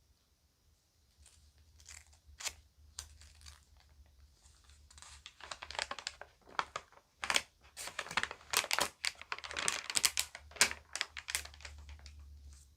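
Crinkly magazine pages being handled and turned: a few scattered rustles at first, then a dense run of crackling from about five seconds in until near the end.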